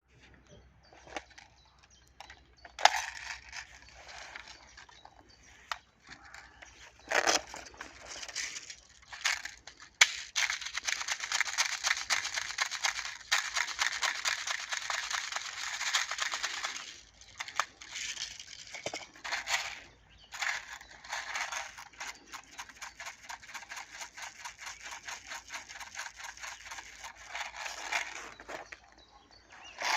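FAMAS F1 Evo airsoft electric rifle (AEG) firing: a few single shots, then long full-auto strings of rapid clicks, with a pause near the middle.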